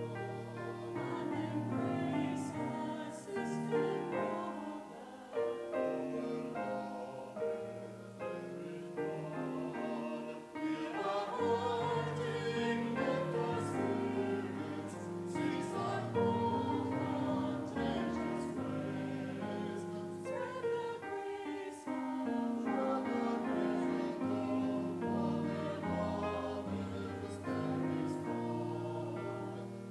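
Mixed church choir singing a hymn-like piece with piano accompaniment.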